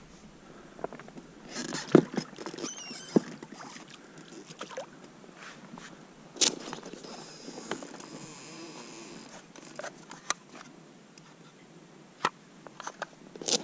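Handling noise aboard a small inflatable pontoon boat: scattered sharp knocks, taps and rubbing as the fishing rod, oar and gear are moved about, the loudest knock about two seconds in.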